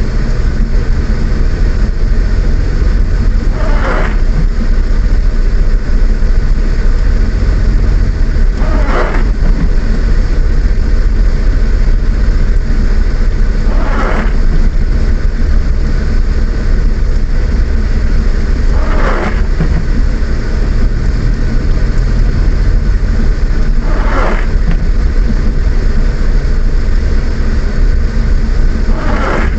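Car cabin noise while driving in the rain: a steady low rumble of engine and tyres, with a windscreen wiper sweep about every five seconds.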